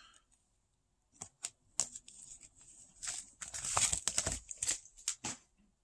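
Hands handling plastic card toploaders and paper-and-plastic padded mailers: a few sharp plastic clicks, then a busy stretch of crinkling rustles and taps, loudest around three to four seconds in.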